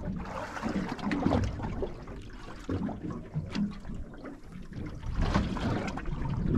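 Sea water lapping and slapping against the hull of a drifting fishing boat, with a low wind rumble and scattered small knocks.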